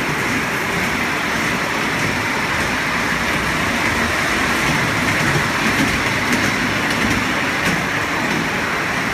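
Kids' amusement train ride running along its circular steel track: a steady running noise that stays even throughout.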